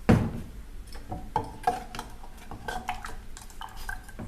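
A spoon clinking and knocking against a cooking vessel as the ground rasam paste is stirred with the water, salt and turmeric just added. One loud knock right at the start, then several lighter clinks.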